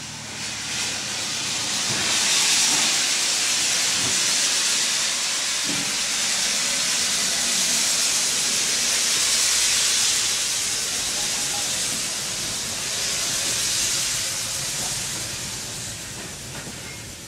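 Steam locomotive venting steam with a steady loud hiss that swells in over the first couple of seconds, holds, and eases off near the end.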